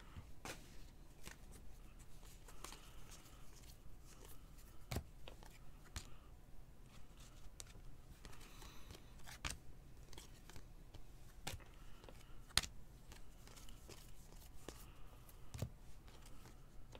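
Football trading cards being flipped through by hand: faint rustling of card stock sliding across card stock, with scattered soft clicks as each card is moved to the back of the stack.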